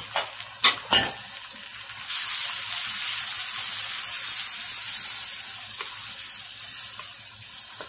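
Chopped onion sizzling in hot oil and butter in a kadai as it is stirred with a spatula. Three sharp knocks come in the first second, then the sizzle swells about two seconds in and runs on steadily.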